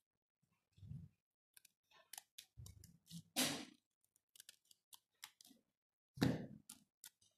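Scissors cutting folded paper: scattered small clicks of the blades and paper handling, with one loud snip about three and a half seconds in. A thump comes a little after six seconds as the scissors are set down on the table.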